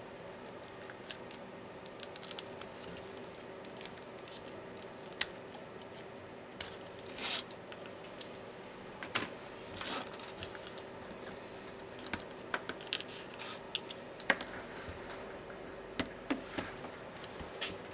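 Small laptop parts being handled and taken apart by hand: scattered light clicks and taps of plastic and metal, with a couple of short scrapes about 7 and 10 seconds in, over a faint steady hum.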